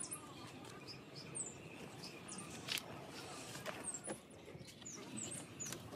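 Occasional light metallic clicks and taps as a starter motor's brush-holder end plate is handled and fitted over the armature. Birds chirp in the background, short high falling chirps every second or so.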